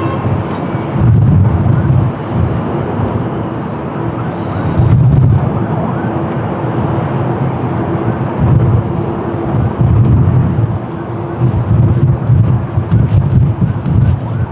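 Strong gusty wind buffeting the microphone in loud, uneven low rumbling surges, over the steady drone of a jet airliner's engines on approach.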